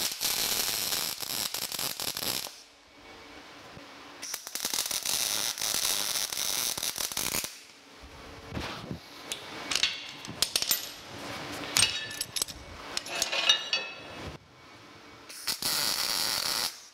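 MIG welder striking tack welds on steel angle-iron frame corners: three bursts of crackling, sizzling arc, the first two a few seconds each and the last shorter near the end. Between the second and third tacks come irregular metallic clicks and clinks.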